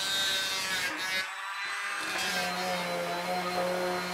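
Electric hand planer cutting a wooden wedge for about a second. From about two seconds in, a random orbital sander runs with a steady hum.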